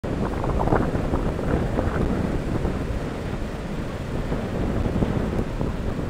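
Wind buffeting the microphone in uneven gusts over the steady wash of choppy ocean surf breaking along the beach.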